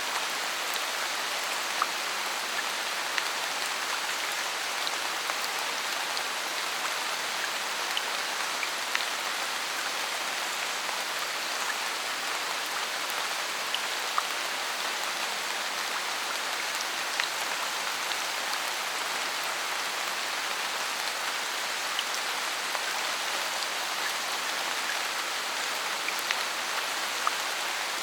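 Steady rain falling in a forest: an even hiss of rainfall with scattered louder drops ticking through it.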